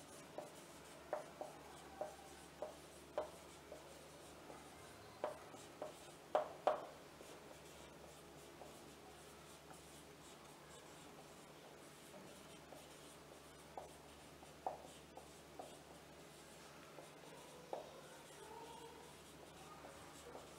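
Dry-erase marker writing on a whiteboard: faint scratchy strokes and small squeaks of the felt tip, close together for the first seven seconds, then sparser.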